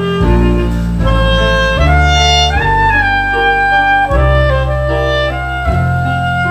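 Clarinet playing a melody in held, gliding notes over an accompaniment of deep sustained bass notes that change every second or so.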